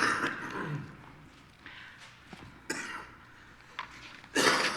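A lull in a congregation with a few short coughs and throat-clearings, the loudest near the end, between stretches of quiet room.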